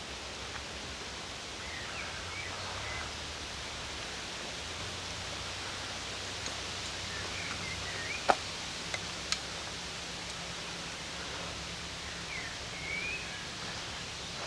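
Rural outdoor ambience: a steady rustling hiss, with birds giving short chirping calls a few times. Two sharp clicks come about eight and nine seconds in.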